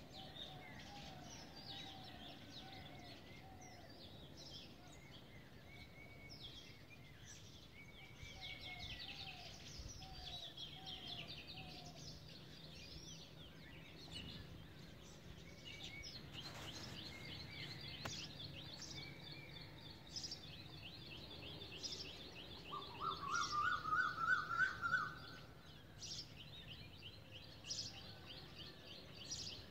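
Several birds calling outdoors: scattered chirps and rapid high trills, with a steady run of quick high chirps through the second half. About three-quarters of the way in, one louder bird call of quick rising notes stands out.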